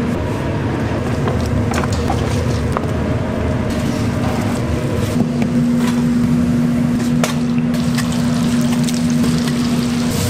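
A steady machine hum over a low rumble, with scattered clicks and clatter. The hum weakens just after the start and comes back strong about five seconds in.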